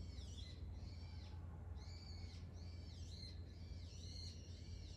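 Small birds chirping outdoors: short high call notes repeated in quick succession, over a faint low steady hum.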